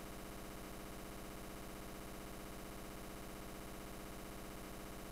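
A steady, unbroken buzz with a fast, even flutter that does not change at all.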